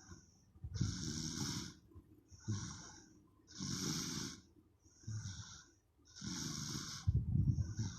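A sleeping baby snoring loudly and rhythmically: three long snores a little under three seconds apart, each with a shorter, softer breath between, the last the loudest.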